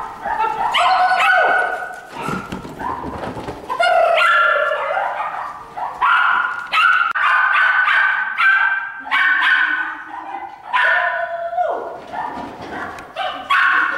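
Shetland sheepdog barking and yipping repeatedly in quick runs of high-pitched calls, with a few longer held calls partway through.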